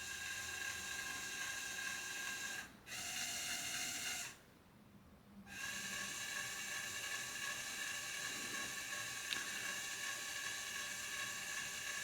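LEGO WeDo 2.0 motor spinning the LEGO fan with a steady whine. It stops briefly nearly three seconds in, runs again at a different pitch for about a second and a half, and cuts out for about a second. It then runs steadily again.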